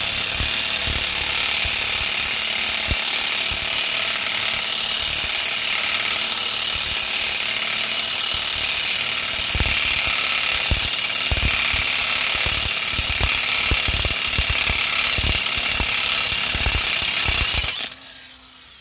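Impact wrench hammering continuously on a Toyota Verso's drive shaft hub nut to undo it, stopping near the end.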